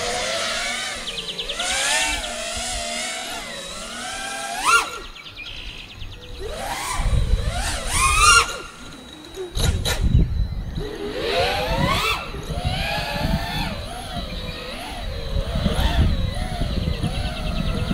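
Onboard audio of a 6S FPV freestyle quadcopter: the whine of its brushless motors and propellers, rising and falling with the throttle. Its pitch climbs sharply at throttle punches about 5, 8 and 12 seconds in, with rushing air noise on the microphone in between.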